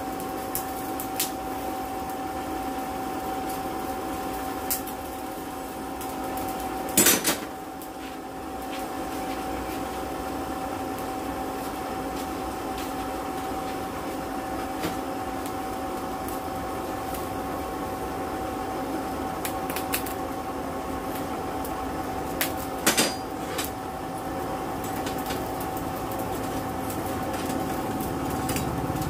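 Electric blower on a coal forge running with a steady hum, with a few brief metal clanks, the loudest about seven seconds in and another cluster a little past twenty-two seconds.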